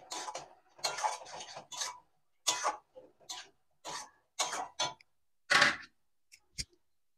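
A spatula scraping and stirring masala as it fries down in a kadai: about a dozen short, uneven strokes, the loudest a little past halfway, then a light knock.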